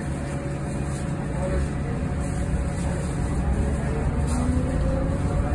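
Running noise inside a Yutong ZK6128BEVG battery-electric bus: steady road and tyre rumble with a low hum, growing slightly louder about a second and a half in.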